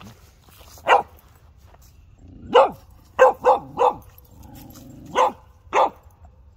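Dog barking: seven short, sharp barks, a lone one, then a cluster of four in quick succession, then two more near the end.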